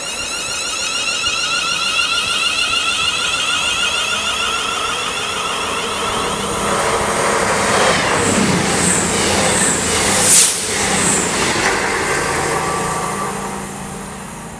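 An electric train's motors whine in rising, stepping tones. About six seconds in, an Avanti West Coast Class 221 Super Voyager diesel-electric train rushes past at speed, with a sharp clatter about ten seconds in, and a low steady hum as it goes.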